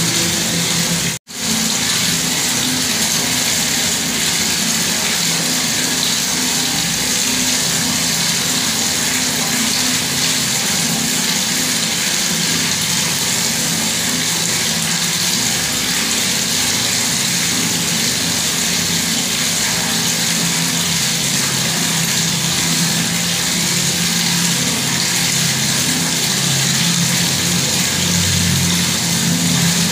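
Bathroom water tap running steadily, a constant rush of falling water with a low rumble underneath. The sound drops out for an instant about a second in, then carries on unchanged.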